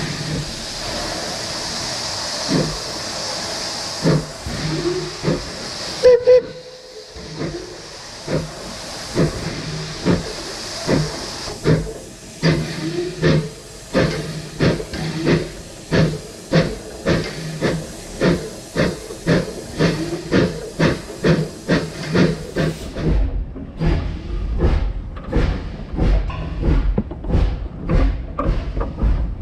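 A 2 ft 6 in narrow-gauge steam tank locomotive first stands hissing steam. It then gives a sharp blast about six seconds in and pulls away, its exhaust chuffs coming slowly at first and quickening to an even beat. Near the end the hiss cuts out and a deeper, duller rhythmic thudding takes over.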